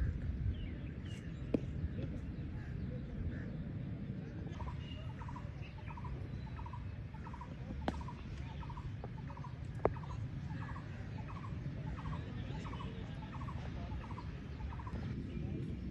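A bird calling over and over, short calls about twice a second, from about four seconds in until near the end, over a steady low rumble. A sharp crack about halfway through, a cricket bat striking the ball, and a couple of other single sharp knocks.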